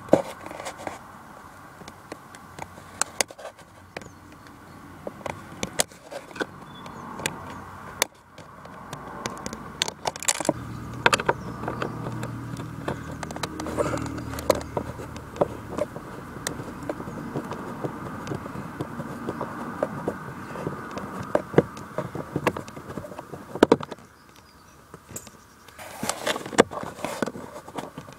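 A Phillips screwdriver undoing a car door-panel screw through a hole in the plastic trim, with irregular small clicks, ticks and scrapes of metal against plastic. Near the end the loose screw is picked out by hand.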